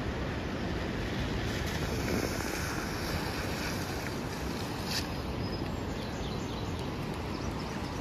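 Steady rushing road and wind noise from riding in a moving vehicle, with wind buffeting the microphone.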